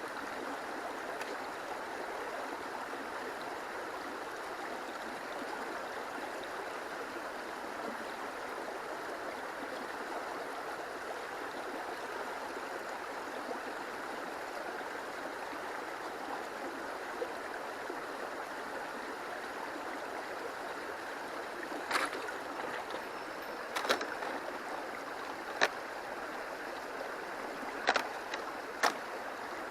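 Stream water rushing steadily over a riverbed. Several sharp clicks or knocks come in the last several seconds.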